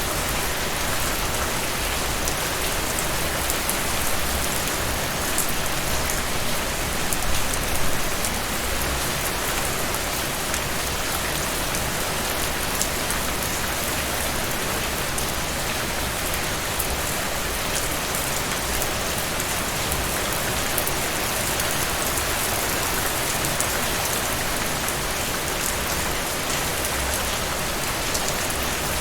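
Steady rain falling on a surface, an even hiss dotted with fine droplet patters, with a few slightly louder gusts of rain a few seconds in.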